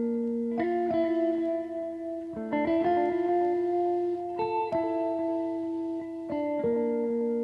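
Background music: a slow melody of long held notes that change every second or two.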